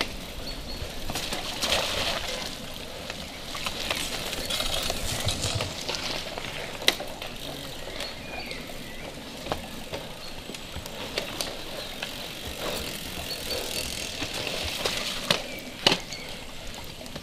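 Cross-country mountain bikes riding through a muddy forest section one after another: tyre noise in mud and dirt and the rattle of the bikes, with a few sharp clicks and knocks.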